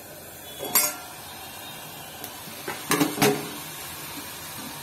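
Steel plate lid and a perforated metal spoon clinking against a kadai as the lid comes off and the cooked pumpkin is stirred: one sharp clank about a second in, then a quick cluster of clinks about three seconds in.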